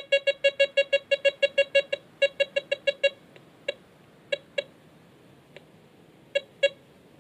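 Desert Gold 3 metal detector giving rapid, evenly repeated mid-pitched target beeps, about six a second, as a small gold ring is waved at its coil near the limit of its range, about 46 cm. After about three seconds the beeps thin to a few scattered single beeps, then quicken again near the end.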